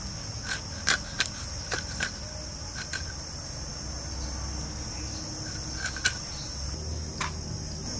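Raw sea crab shell clicking and cracking against a boti blade as the body is broken open and the gills scraped away. There are about eight sharp clicks at uneven intervals, the loudest about a second in and near six seconds, over a steady high-pitched insect chorus.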